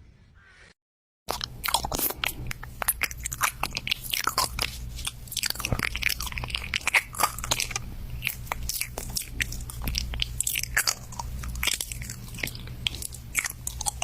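Crunchy food being chewed close to the microphone: a dense, irregular run of crisp crunches that starts about a second in after a brief silence, over a low steady hum.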